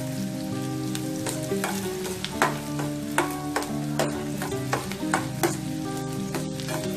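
Chopped onions and garlic frying in oil in a stainless-steel pan, a steady sizzle, while a spatula stirs them with frequent quick scrapes and taps against the pan.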